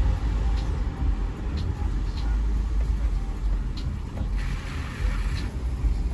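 A car driving, heard from inside the cabin: a steady low road and engine rumble, with a few faint clicks and a brief hiss about four and a half seconds in.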